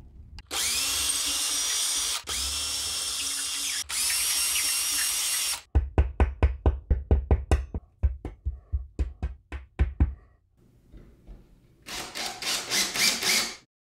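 Cordless drill boring holes into the ceiling in three short runs. Then a claw hammer taps wall anchors into the holes with a quick series of sharp knocks. Near the end a cordless driver runs in a screw, fixing the mounting bracket.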